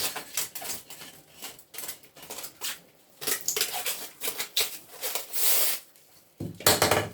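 Irregular clicks, scrapes and clinks of kitchenware being handled, dish and utensil, with a louder knock near the end.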